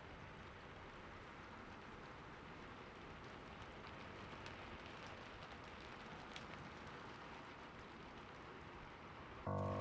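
Steady soft rainfall, an even hiss with a few separate drops ticking through it. Gentle sustained music chords come in just before the end.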